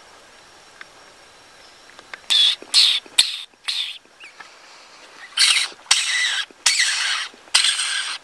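A hunter's mouth squeaks, a string of short, loud, high squeaks in two bunches starting about two seconds in. They mimic a distressed small animal and are used here to call a coyote back toward the hunter.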